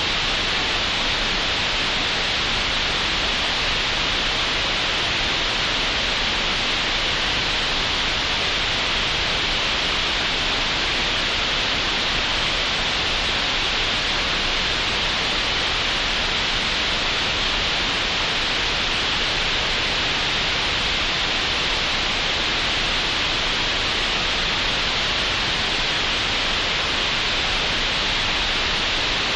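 Synthetic green noise generated in Audacity: a steady, unchanging hiss with no breaks, loudest in the middle-upper range and cut off sharply above about 8 kHz.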